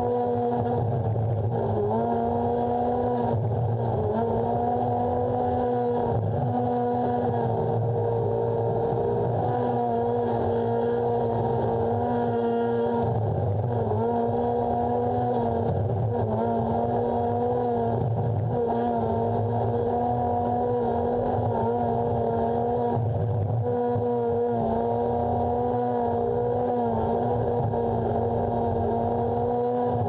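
Craftsman garden tractor engine running steadily while plowing snow, its pitch dipping briefly now and then.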